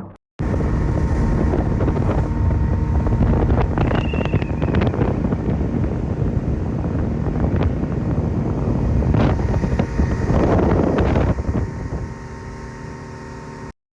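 Motorboat engine running steadily, with wind buffeting the microphone and a few knocks; it drops somewhat near the end and then cuts off abruptly.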